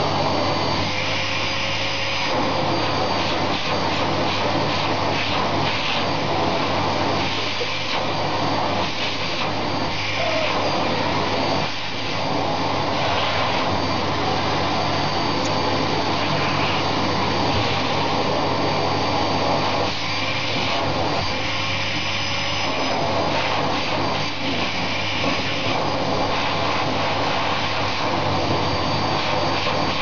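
Vacuum cleaner running steadily: a continuous rush of air over a low motor hum, with a thin high whine, dipping only briefly now and then.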